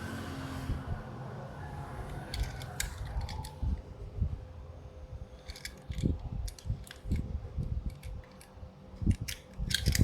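Hands handling toy packaging: scattered sharp clicks and taps with soft low thumps, over a faint steady hum.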